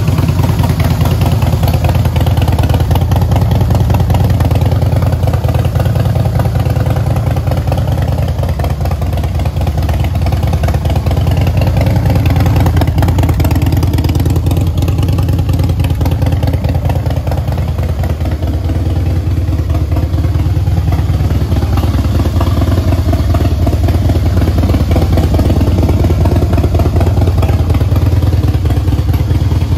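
Harley-Davidson CVO Springer's 110 cubic inch Twin Cam V-twin idling steadily through an aftermarket Freedom exhaust.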